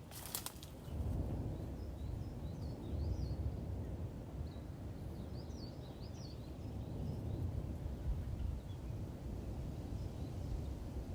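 Steady low rumbling outdoor noise, with faint bird chirps twice.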